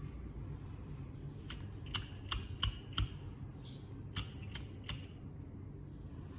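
Sharp clicking taps on a sewing kit box: five between about one and a half and three seconds in, then three more a little past four seconds. A steady low hum lies under them.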